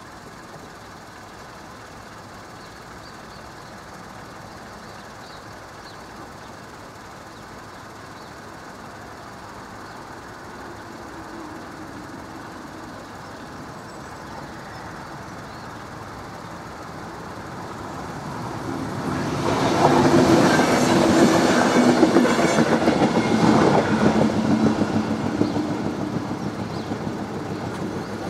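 Local electric passenger train approaching and passing over a level crossing. A low rumble builds for several seconds, then about two-thirds of the way in it passes loudly for about five seconds with a rapid clatter of wheels over the rails. It then fades as it pulls away.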